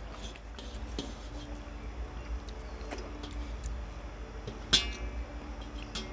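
Faint sounds of eating by hand from steel plates: fingers scraping and small clicks, with one sharp ringing clink of a steel dish a little under five seconds in. A low steady hum runs underneath.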